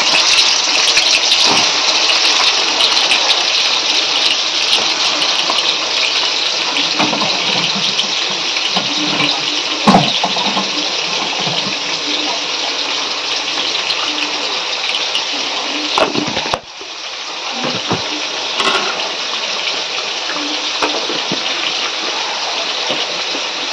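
Water running steadily from a tap, with a few knocks of utensils, the sharpest about ten seconds in; the flow dips briefly about two-thirds of the way through.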